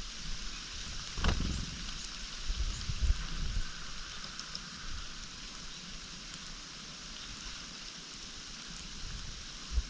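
Steady, even hiss like rain, with uneven low rumbling and one sharp knock about a second in.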